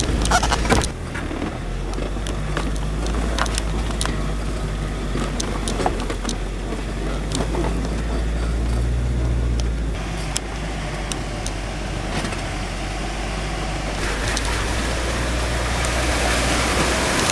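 A car driving slowly over a rough, rocky dirt road: steady low engine rumble with scattered knocks and rattles from the bumps. A hiss builds up about fourteen seconds in.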